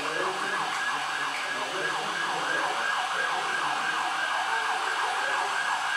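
Emergency vehicle siren sounding in a fast up-and-down yelp, several sweeps a second, for about six seconds before cutting off.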